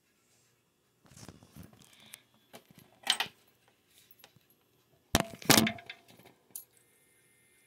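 Rustling and knocking with a few metallic clinks and jingles. The loudest clattering comes about three seconds in and again about five seconds in.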